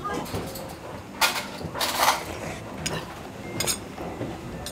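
A person eating bulgogi over rice with a metal spoon: two short noisy eating sounds in the first half, then a few light clinks of the spoon against a stainless steel bowl.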